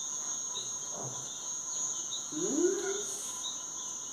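Steady high chirring of insects, with a softer short chirp repeating about every two-thirds of a second. A brief rising hum of a person's voice comes about two and a half seconds in.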